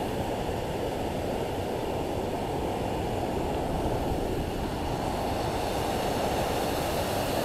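Water pouring over a dam: a steady, even rush of falling water.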